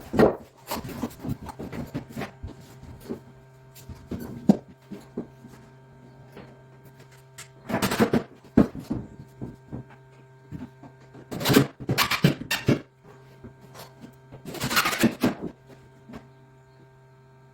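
Sharp block plane shaving wood in a few strokes of about a second each, with smaller knocks and handling clicks between them.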